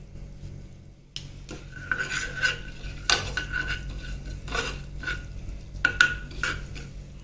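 A steel spoon stirring cumin seeds in hot ghee in a small non-stick saucepan. Irregular scrapes and clinks against the pan start about a second in, some with a brief squeak, while the seeds fry faintly in the ghee.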